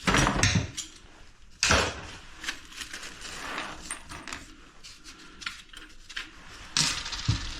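Small metal hardware being handled at a toilet tank: scattered light clinks and knocks as washers and nuts go onto the tank bolts, with a sharper knock about two seconds in.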